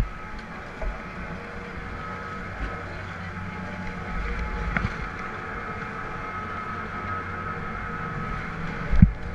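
Chairlift machinery at the loading station running with a steady hum and a thin high whine. A few knocks break through, the loudest near the end.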